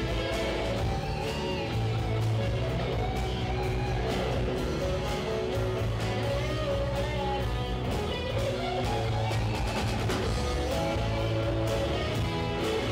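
A live rock band playing a song: electric and acoustic guitars, bass and a drum kit keeping a steady beat, with a singer carrying the melody.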